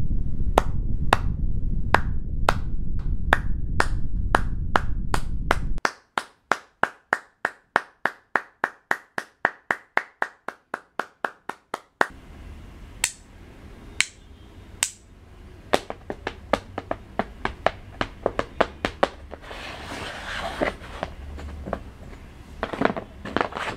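Sharp percussive clicks in a rhythm. For the first six seconds they quicken over a low rumble that cuts off suddenly. The clicks then go on alone at about four a second, and after about twelve seconds they come sparser and irregular over a faint hiss.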